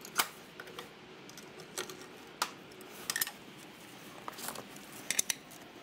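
Scattered metallic clinks and knocks from a trolley jack being lowered and a torque wrench being handled, with a small cluster of clinks about three seconds in and more near the end.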